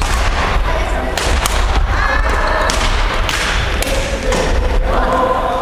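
Badminton rally in a large gymnasium hall: repeated sharp racket hits on the shuttlecock and thuds of players' feet on the wooden court floor.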